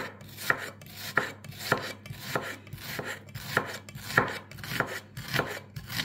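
Kitchen knife chopping onion on a cutting board: a steady run of about ten sharp knocks, roughly one every half second or a little more, with the blade scraping lightly between strokes.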